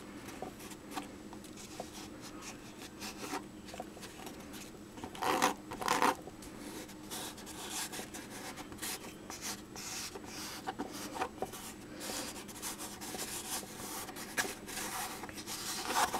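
Hands rubbing and pressing on the fabric back of a small stretched canvas laid face down in wet pour paint: a dry, scratchy rubbing with many small clicks, and louder scrapes a little past five and six seconds in and again near the end.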